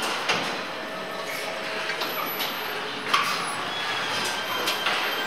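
Car assembly-line noise: a steady mechanical hum with sharp clanks and clicks from tools and fixtures, the loudest clank about three seconds in.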